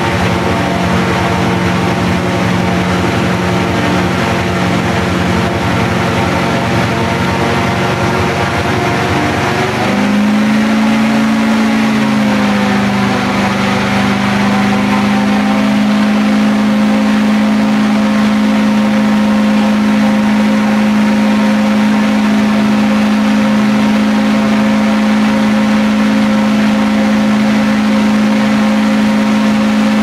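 Airboat engine and propeller running steadily under way. About ten seconds in, the engine speeds up and its pitch rises a step, then holds steady at the higher speed.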